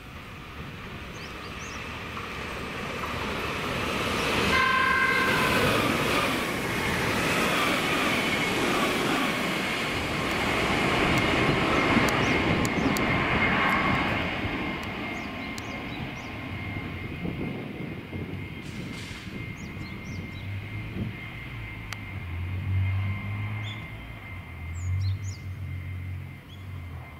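Meitetsu electric train passing through the station at speed, sounding a short horn blast about five seconds in. The rushing roar of the passing train swells and then fades away over the following seconds.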